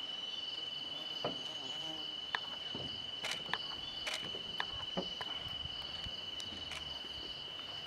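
An insect trilling on one steady high pitch without a break, with a few scattered sharp clicks over it.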